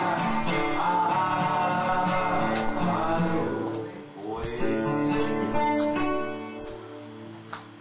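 Acoustic guitar music with a voice singing, dying away about six seconds in.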